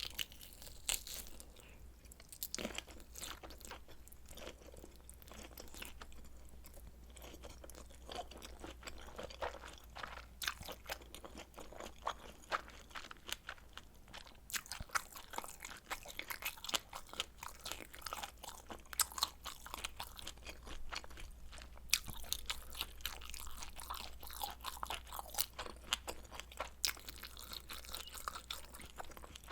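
Close-miked eating sounds: a person chewing and biting food, with many crisp crunching clicks that grow denser and louder about a third of the way in. A faint low hum runs underneath.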